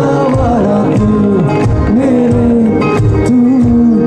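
Live band playing through a PA, heard from the crowd: singing over strummed acoustic guitars and a steady drum beat.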